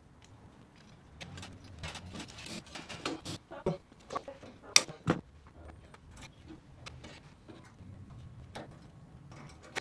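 Safety wire and safety-wire pliers clicking and rattling against the aluminium wing structure as the wire is threaded and twisted: irregular small metallic clicks and jingles, the sharpest about five seconds in.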